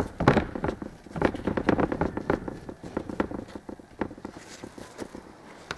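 Fingertips pressing down the edges of a sugar-coated paste topping on a dough ball and tapping on the steel work table: a quick run of soft, irregular taps that thins out after about two and a half seconds.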